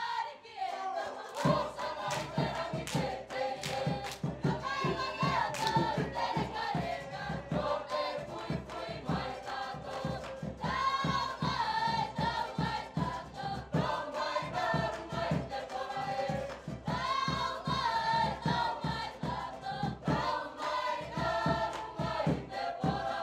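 Mixed choir of young men and women singing a Cook Islands song in harmony, over a fast, steady strummed or beaten accompaniment.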